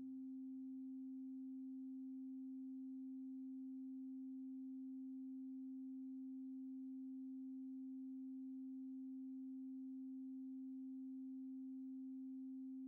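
A faint, steady, pure electronic tone held at one pitch without change: the last sustained note of a house track left ringing out on its own.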